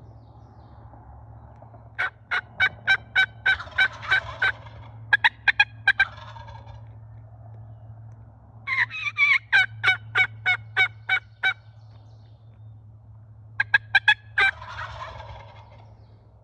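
Wild turkey jakes calling at close range in four bouts of rapid, evenly spaced notes.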